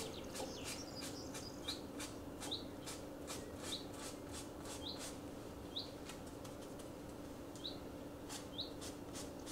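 Paintbrush dabbing and flicking acrylic paint onto a canvas: faint, quick scratchy strokes, about two or three a second. Short high rising chirps repeat about once a second alongside, over a faint steady hum.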